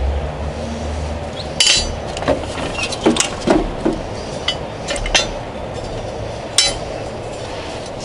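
A steel lawnmower blade being worked by hand to sharpen it: a steady scraping broken by irregular metallic clinks and knocks.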